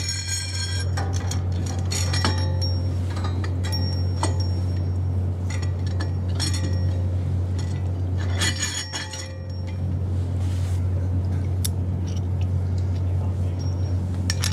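Steel bolts, nuts and wrench clinking and ringing against a steel plate in several bunches of bright clinks, as a propeller-puller plate is bolted up between the blades of a boat propeller. A steady low hum runs underneath.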